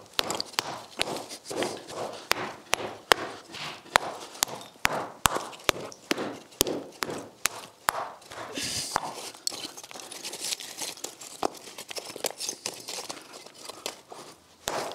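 A hammer repeatedly striking old bricks, smashing them into rubble to fill a floor channel, at about two sharp blows a second. Around eight seconds in there is a brief scraping rustle, after which the blows come only now and then until they pick up again at the very end.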